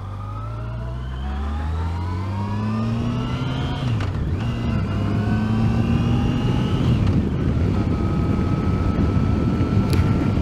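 Yamaha FJR1300's inline-four engine accelerating, its pitch rising, dropping at a gear change about four seconds in, rising again, then holding steady at cruise near the end. Road and wind noise grow louder as speed builds.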